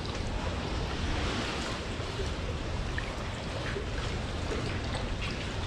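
Steady wash of river water lapping against the bank, with a low rumble of wind.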